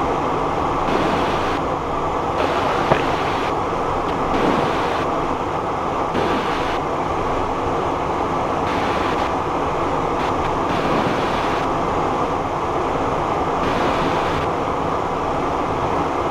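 Steady in-flight cockpit noise of a Cessna Citation Encore business jet: rushing airflow and the running of its twin turbofan engines, a low even rush with hiss that comes and goes. A single short click about three seconds in.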